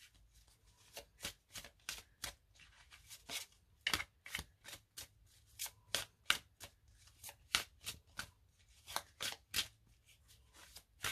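A deck of tarot cards being shuffled in the hands: an irregular run of short, soft card slaps, a few a second.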